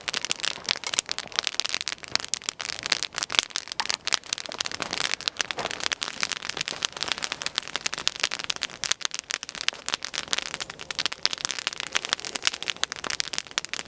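Log campfire, built as an upside-down fire, crackling with dense, irregular sharp pops and snaps.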